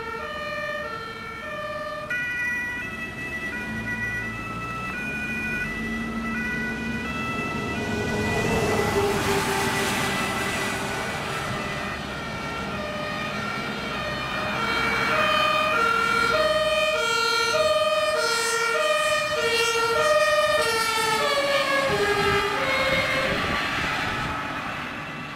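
German two-tone emergency sirens (Martinshorn) of an ambulance and an emergency doctor's car, alternating steadily between a high and a low note, with the note pattern changing partway through. Passing road traffic swells under the sirens about a third of the way in.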